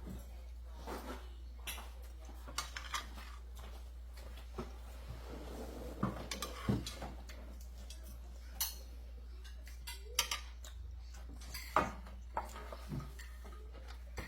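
Spoons and forks clinking and scraping on plates as people eat, in short, irregular, scattered clinks.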